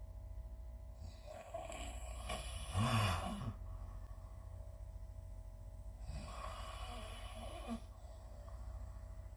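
A sleeping person snoring: two slow breaths. The first carries a loud snore about three seconds in; the second, about six seconds in, is softer.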